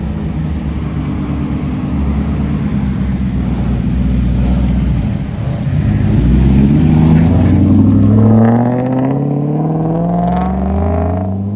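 A 4.0-litre V8 in a BMW running at low revs as the car rolls off, then accelerating hard with the engine note climbing in pitch from about eight seconds in, dropping at a gear change and climbing again near the end.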